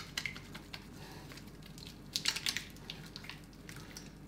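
Wet hands rubbing a bar of castile soap to work up a lather, making soft, short squelching strokes. The strokes come in a few brief bunches, the busiest about two seconds in.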